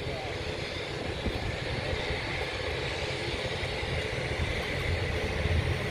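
C-130 Hercules's four turboprop engines droning on landing approach: a steady low hum that slowly grows louder as the aircraft comes closer.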